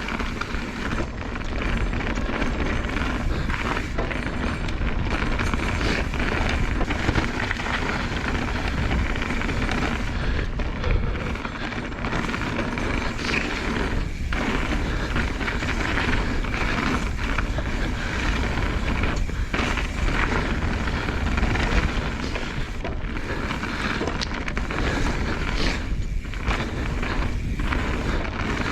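Mountain bike riding fast down a dirt trail: heavy wind buffeting on the microphone, tyres rolling over the ground, and scattered knocks and rattles from the bike over bumps.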